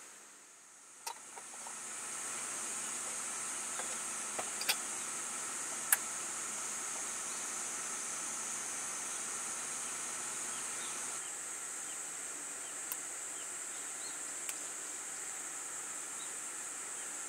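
Steady high-pitched chorus of summer evening insects, with a few sharp clicks, the loudest about six seconds in.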